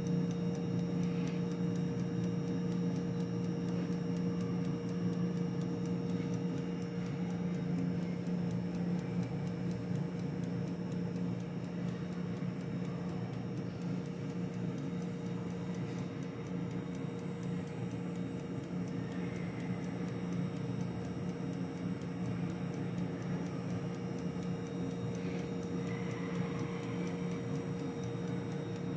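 Air fryer running: its fan motor gives a steady hum, with the light ticking of its clockwork timer over it.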